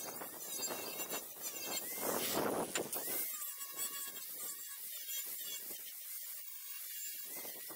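Angle grinder with a flap disc sanding the edge of a steel bar: a steady motor whine with a grinding hiss that gets louder for about a second around two seconds in.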